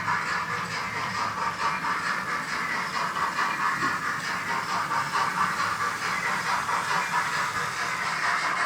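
H0-scale model steam locomotive running with its digital sound decoder playing a steady steam hiss and chuff, alongside the rattle of the model train on the track.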